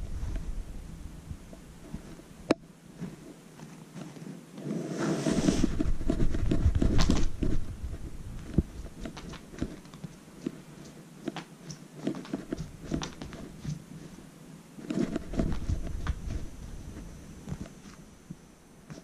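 A kitten pawing and batting at a cat-teaser toy dragged over tatami matting and a carpeted cat tower: scuffing, rustling and light taps, with louder bursts of rustling about five to seven seconds in and again around fifteen seconds.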